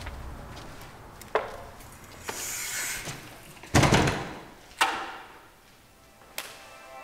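Glass storefront door being opened and let swing shut, with a loud thud about four seconds in. Sharp clicks come before and after it, from the door hardware and a wall light switch.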